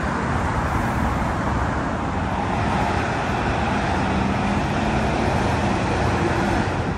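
Steady city traffic noise: cars and trucks passing on a busy multi-lane road, a continuous wash of tyre and engine sound.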